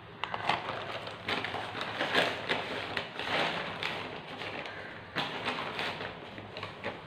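Plastic flour packet crinkling and rustling as it is handled, in irregular bursts with a sharper crackle about five seconds in.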